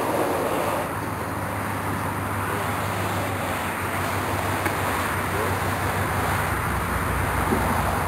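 Steady rushing background noise with a low hum underneath, unchanging throughout.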